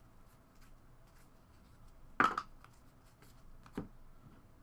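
Trading cards being handled on a table: faint ticks and rustles, with one sharp slap or knock about two seconds in and a smaller one a little under two seconds later.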